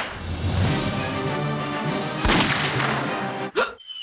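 Dramatic sound-effect music: a sharp hit, then a loud rumbling swell with a heavy boom about two seconds in, ending in a quick upward swoosh with a bright ring.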